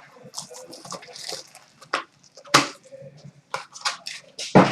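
Trading card boxes and packs being handled and opened: scattered clicks, rustles and crinkles of cardboard and wrapper, with two sharper taps, one midway and one near the end.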